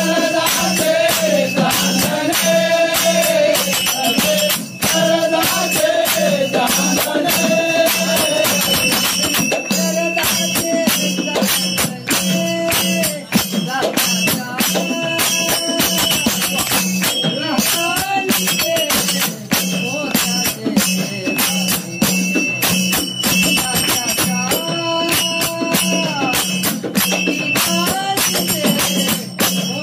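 Group singing a Marathi devotional bhajan to Vitthal, with hand percussion keeping a dense, steady rhythm.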